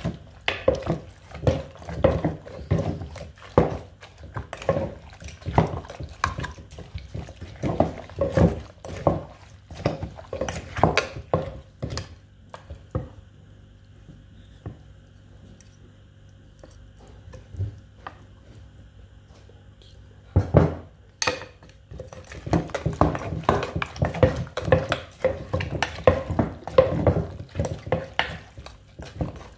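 Wooden pestle pounding salad ingredients in a wooden mortar, about two dull knocks a second, with a plastic spoon scraping and turning the mix. The pounding eases off in the middle and comes back faster after a sharp knock, carrying on to the end.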